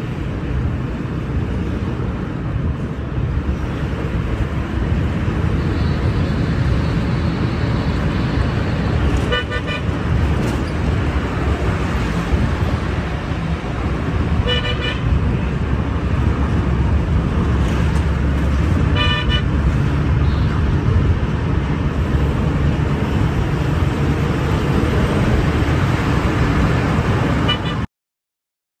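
Steady engine and road rumble from inside a moving vehicle in city traffic, with three short runs of quick vehicle-horn toots about five seconds apart. The sound cuts off suddenly near the end.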